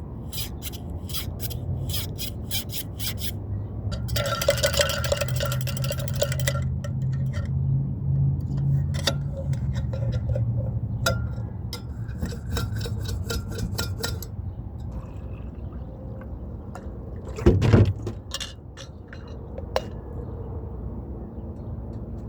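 A drinking mug being washed by hand: runs of quick, rhythmic scrubbing strokes, water running and sloshing in the mug, and light clinks, with one louder knock about three-quarters of the way through.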